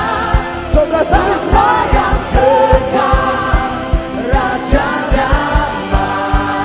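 Christian worship song with a band playing under singing voices, a steady kick-drum beat and occasional cymbal crashes.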